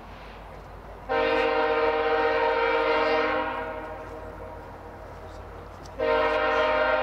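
Horn of a VIA Rail F40PH locomotive, No. 6429, sounding a multi-note chord: one long blast starting about a second in and fading out, then a second blast starting near the end, over the low rumble of the departing passenger train.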